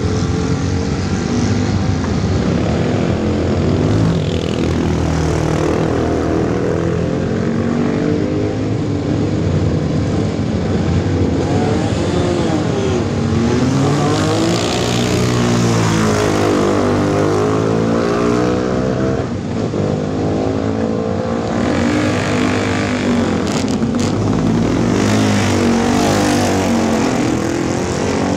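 Several classic racing motorcycle engines running at the start line, blipped repeatedly, with bikes revving up and pulling away from the line; the engine pitch rises and falls throughout, most strongly about halfway through.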